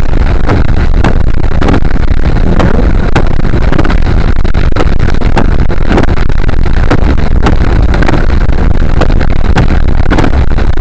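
Car driving on a wet, slushy road, heard through a dash cam's overloaded microphone: a steady, loud rumble of tyre and road noise with constant crackling distortion.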